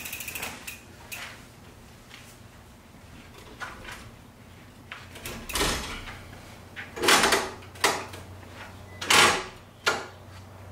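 An all-steel 1UP USA hitch bike rack being loaded: the bike set into the trays and the rack's ratcheting arms pushed down onto the tyres, giving a series of short metal clacks and ratcheting slides, the two loudest in the second half.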